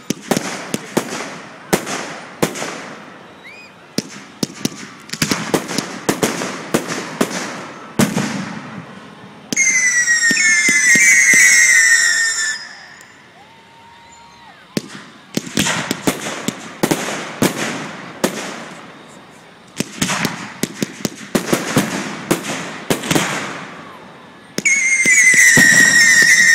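Fireworks display: rapid crackling bursts and bangs. About ten seconds in and again near the end, whistling fireworks give a long, shrill whistle that falls slightly in pitch.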